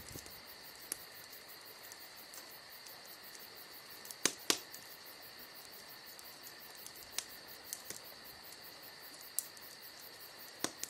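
Wood campfire crackling with scattered sharp pops, over a steady high chirring of insects.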